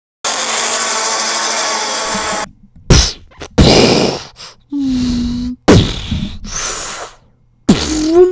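Monster-fight sound effects: a long creature roar, then sharp hits among growling bursts, a cry held at one pitch, and a last cry rising in pitch near the end.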